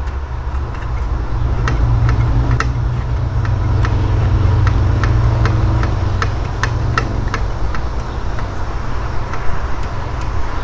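The small gears of a jammed Blaupunkt 6-disc in-dash CD changer mechanism being turned by hand, giving sharp, irregular clicks about one or two a second. A steady low hum runs underneath.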